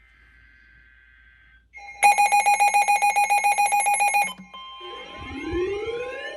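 Emergency alert tones. A faint warbling data burst comes first, then a loud rapid beeping of about a dozen beeps a second starting about two seconds in and lasting about two seconds, then repeated rising whooping sweeps.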